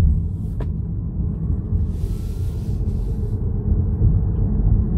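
Steady low road and tyre rumble heard inside the cabin of a moving BYD Seal electric sedan, with no engine note, and a single light click about half a second in.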